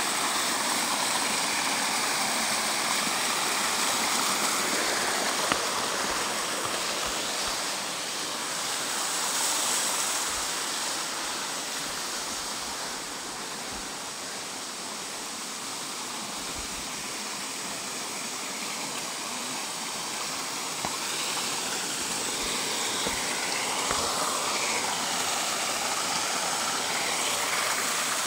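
Rushing water of a mountain stream: a steady, even rush that eases a little midway and swells again toward the end.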